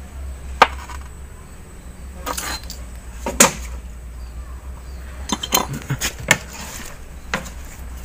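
Metal parts of a disassembled hydraulic gear pump (steel gear shafts, pump housings, thrust plates) clinking and knocking as they are handled and set down on the bench: a scattered series of sharp metallic clinks, over a steady low hum.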